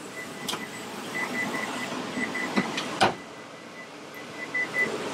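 A steady, fan-like mechanical whir, with a faint high beep pulsing on and off in short runs, and a single sharp knock about three seconds in.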